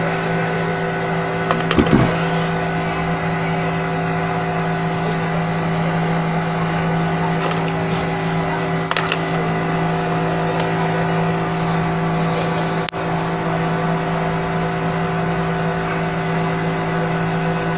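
Steady electrical machine hum with hiss: a low tone with several even overtones that does not change. There are a couple of brief knocks, about two seconds in and again near nine seconds.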